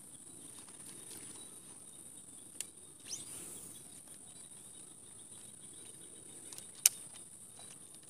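Insects chirring steadily in a high, even drone, with a few sharp clicks, the loudest about seven seconds in, and a short rising call a little after three seconds.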